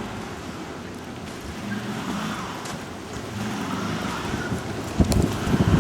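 A car's engine revving as its wheels spin in snow, with the pitch wavering up and down. Near the end a sudden gust of wind buffets the microphone.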